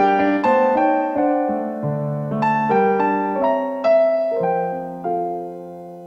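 Instrumental carol played on a piano-like keyboard, a slow melody over chords, ending on a long held chord that slowly fades away.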